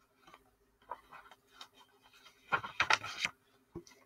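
Picture-book pages being handled and turned: soft paper rustles, then a louder sweep of the page about two and a half seconds in, and two light taps near the end.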